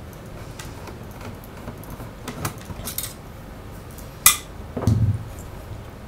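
Light metallic clicks and clinks from a screwdriver taking out a screw and from the metal hard-drive caddy being handled, with one sharp click about four seconds in and a short low thump soon after.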